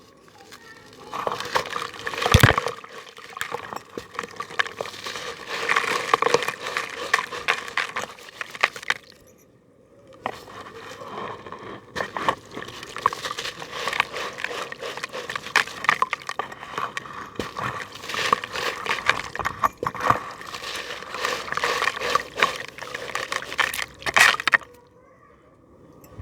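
Crunchy balls crumbling in water: dense crackling and crunching in two long runs, with a brief pause about nine seconds in.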